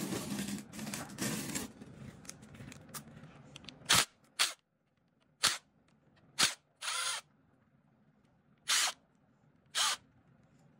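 Handling noise on a 110cc engine's cylinder head, then about seven short, sharp bursts over the next six seconds, one a little longer than the rest, as a driver works on the bolts of the cam timing sprocket.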